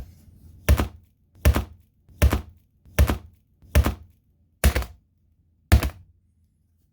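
A tablet being struck over and over with heavy blows: one light knock, then seven hard hits at a fairly even pace of a bit under one a second.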